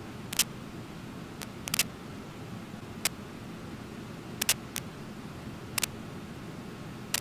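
Steady rush of a waterfall and its rapids, with sharp clicks every second or two, some in quick runs of two or three.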